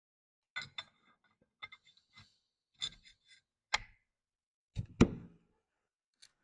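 Scattered clicks and knocks of metal parts and tools being handled during bench reassembly, the loudest knock about five seconds in.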